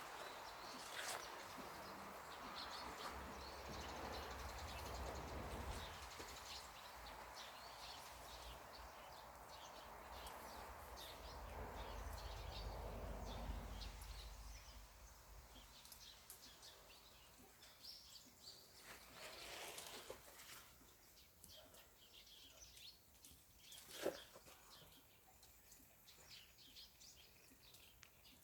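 Small birds chirping on and off over a low rumble like wind on the microphone, which fades about halfway through; one sharp click near the end.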